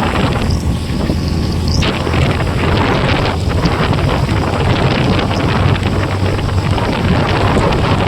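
Wind buffeting the microphone while riding a motorcycle, with the engine's low, steady hum underneath.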